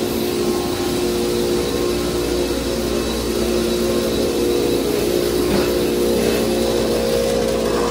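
Factory production machinery running: a steady mechanical drone with several held tones over a hiss.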